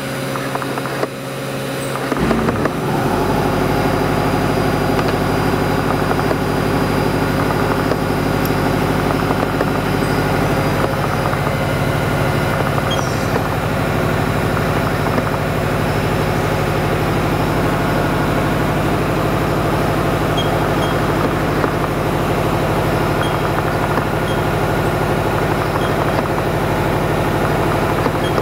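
Haas VF-2 CNC vertical mill running: a steady mechanical hum with a low rumble and several held tones, which comes up about two seconds in and then stays even.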